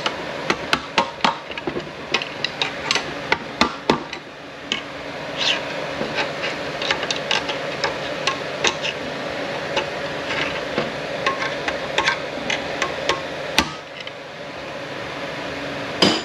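A steel screwdriver taps and clicks against a snap ring and the aluminium case of a Ford 8F40 automatic transmission, working the ring down into its groove. The taps are quick and irregular, densest over the first four seconds and sparser after, with one louder knock near the end, over a steady background hum.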